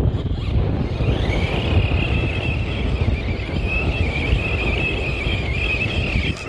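Brushless motor and drivetrain of a Traxxas Rustler 4x4 RC truck whining as it spins in circles on ice. The high whine comes in about a second in and wavers up and down, over a low rumble of wind on the microphone.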